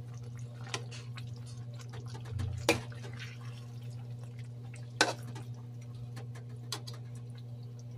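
Sauce simmering in a wok with small scattered pops while a metal spoon bastes it over the fish, clinking sharply against the pan twice. A steady low hum runs underneath.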